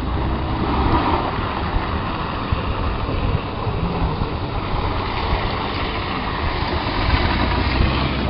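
A car's engine running with a steady low rumble on a snowy street.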